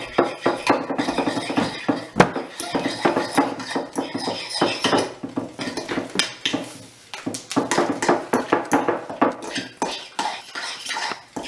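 Metal fork scraping and clinking against a glass baking dish, mixing precooked corn flour into a wet dough in rapid, irregular strokes.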